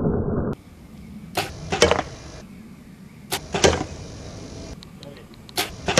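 A metal rod striking a glazed ceramic Delft-blue tulip vase lying on a mat: sharp hits in quick pairs, two about a second and a half in, two more past the middle, and a single hit near the end.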